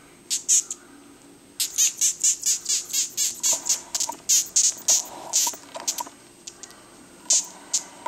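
Death's-head hawkmoth (Acherontia atropos) squeaking while handled: runs of short, shrill squeaks, about four or five a second, thinning out to a few single squeaks after about six seconds. This is the moth's alarm squeak, made by forcing air through its proboscis when disturbed.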